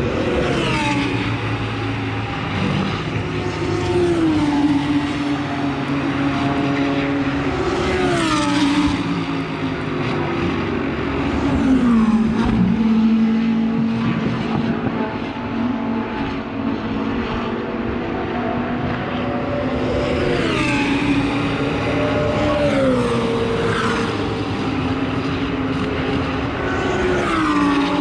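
Several track-day cars running at full throttle, with overlapping engine notes that drop sharply in pitch several times. The loudest stretch comes about twelve seconds in.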